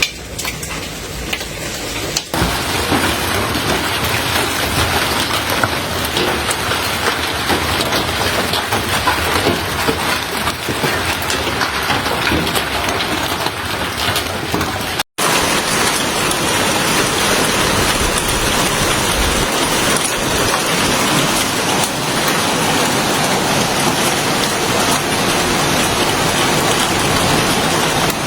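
Heavy hail coming down hard: a dense hiss of countless hailstones striking surfaces, with many sharp individual clicks of impact. It gets louder about two seconds in and breaks off for an instant about halfway through before carrying on.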